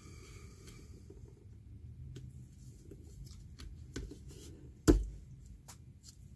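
Gloved hands pulling a fibrous cloth rag out of the blade chamber of a Sanicompact macerator, the rag that has been binding the blade. Soft rubbing and small clicks, with a lighter knock about four seconds in and one sharp knock just before five seconds.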